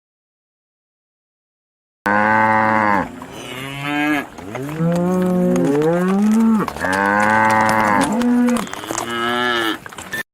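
Cattle mooing: a run of several loud moos, some bending up or down in pitch, starting about two seconds in.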